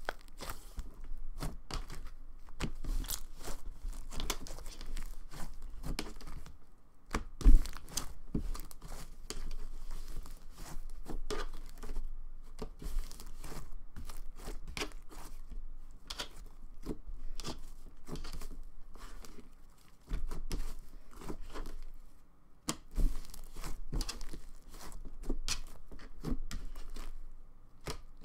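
Soft slime being squished, stretched and pressed by hand close to the microphone, giving a continuous run of small clicks and crackles, with one louder thump about seven and a half seconds in.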